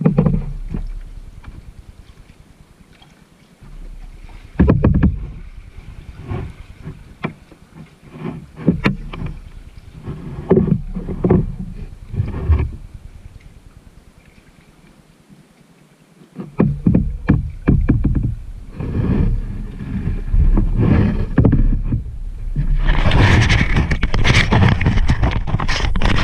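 Kayak paddle strokes in calm water: irregular splashes and drips from the paddle blades. A low rumble of wind on the microphone comes in after about 16 seconds. Dense rubbing and knocking near the end is the bow-mounted camera being handled.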